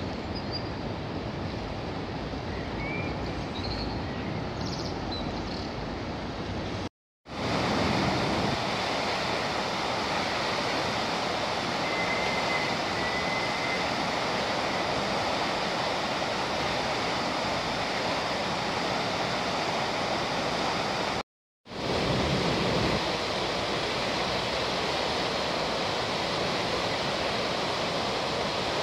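River in spate after heavy rainfall: a steady rush of fast, churning floodwater. The sound cuts out for a moment twice, and is louder after the first break.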